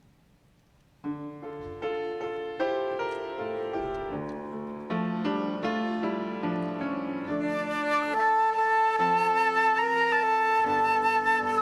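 Piano begins a slow hymn introduction about a second in, playing arpeggiated chords; past the middle a wind instrument joins on a long held melody note.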